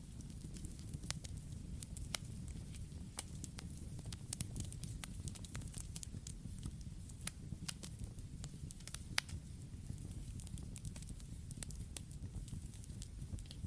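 Campfire burning with a steady low rumble and irregular sharp crackles and pops, a couple of them louder than the rest.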